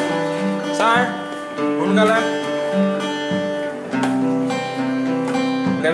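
Background music led by a strummed acoustic guitar, with notes plucked about once a second.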